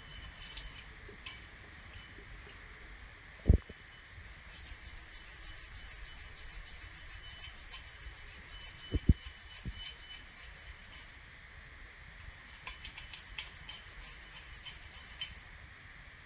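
Small copper-bristle brush scrubbing the rails of a steel pistol slide: fast, scratchy back-and-forth strokes in two long spells, with a pause between them just after 11 seconds. A few dull knocks come from the slide being handled, the loudest about three and a half seconds in.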